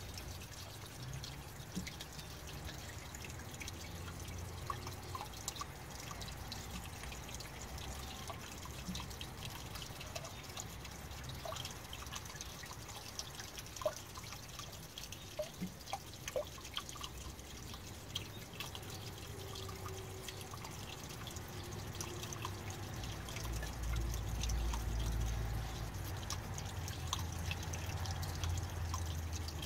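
Small water fountain trickling and dripping, with scattered short plinks of drops. A low rumble underneath grows louder in the last few seconds.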